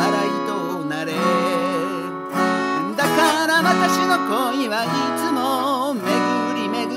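Gibson J-45 acoustic guitar strummed with a pick through a B7, Em, D and Am chord change. A voice sings the melody over it with vibrato.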